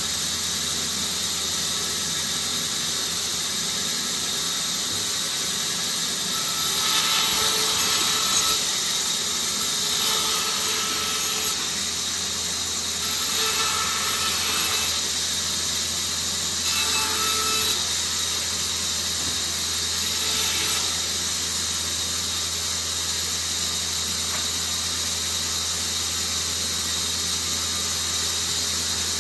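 Bandsaw running with a steady hiss, cutting a bark-covered branch into pointed wooden stakes. About five louder stretches of sawing, a second or two each, come between a quarter and two-thirds of the way through as the wood is fed into the blade; the rest is the saw running without a cut.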